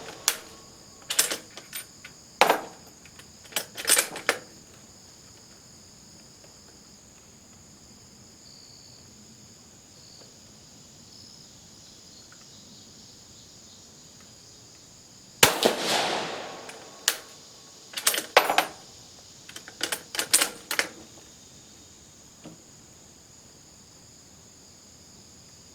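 A single shot from an Italian Vetterli 1870/87/15 bolt-action rifle in 6.5 mm about fifteen seconds in, ringing out with a long echo. Around it, a series of sharp metallic clicks and clacks as the bolt is worked to eject the case and chamber the next round, once in the first few seconds and again right after the shot.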